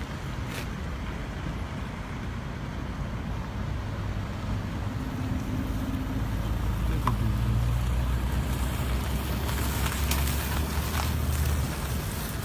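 Road vehicle noise on a highway: engine rumble and tyre noise that swell and are loudest about eight to eleven seconds in, as if a vehicle passes close by.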